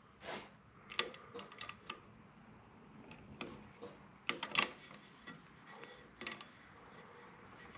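Light, irregular clicks and taps of small tools and objects being handled on a workbench, the loudest few together about four and a half seconds in.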